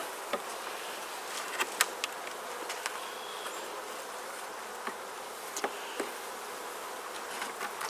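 A colony of honeybees buzzing steadily around an opened Langstroth hive. A few light clicks sound over the buzzing, around two seconds in and again near five to six seconds.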